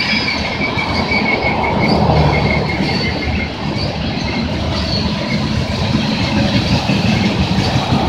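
Loaded-or-empty BNSF coal hopper cars rolling past: a steady, loud rumble of steel wheels on rail. A thin high wheel squeal sounds over it for the first few seconds and fades out about halfway through.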